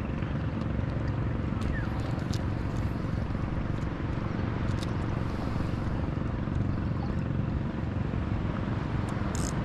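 Engine of a passing motorized bangka (outrigger boat) running steadily, a low drone that holds level.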